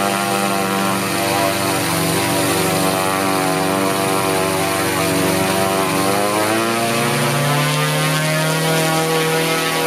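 Seven-cylinder Brownbear Septa 162 model radial engine running on a test run, a steady hum with many layered tones. Its pitch rises about seven seconds in and then holds steady at the higher speed.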